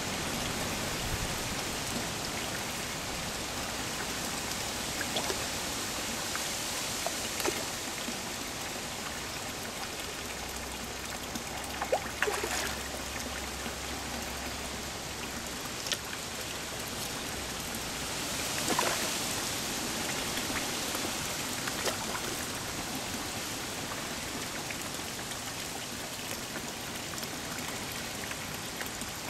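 Steady running water churning into a garden fish pond, with a few short splashes as the fish take floating food pellets at the surface.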